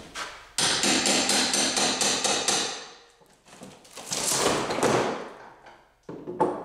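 Hammer striking the wooden frame of a boat in a fast run of blows, about six a second, for some two seconds while the old floor is knocked apart. A longer rough noise follows about four seconds in, then a few knocks near the end.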